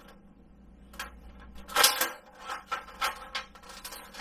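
Stack of plastic food dehydrator trays clattering and clicking against each other as they are handled, with one louder knock about two seconds in and a run of lighter clicks after it.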